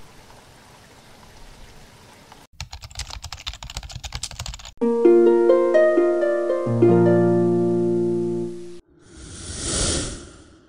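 Intro jingle sound effects: a rapid burst of clicks, then a quick run of plucked musical notes that build into a held chord, then a whoosh that swells and fades near the end.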